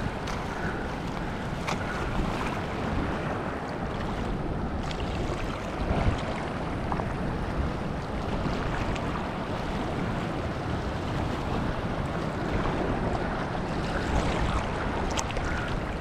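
Wind buffeting the microphone over small waves washing across shallow reef rock, with a brief louder swell about six seconds in.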